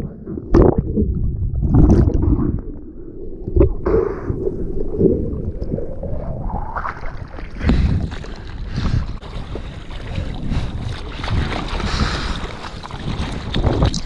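Seawater around a surfboard: for the first few seconds heard from under the surface, dull and muffled with a few splashes, then about six seconds in open, full rushing and splashing water as the board paddles through whitewash and chop.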